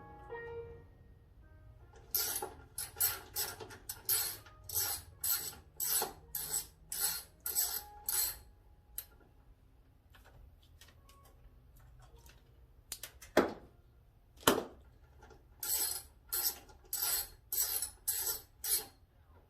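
Ratchet wrench working bolts loose in repeated short strokes, sharp clicks about two a second in two runs, with two louder metal knocks between the runs.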